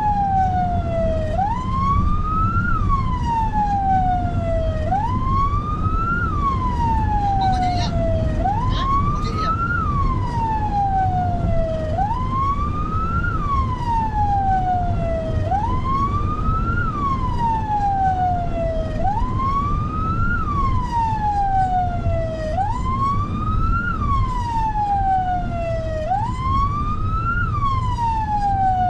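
Emergency-vehicle siren sounding a slow wail: each cycle rises in pitch for about a second and falls for about two, repeating about every three and a half seconds, over a steady low rumble of engine and road noise.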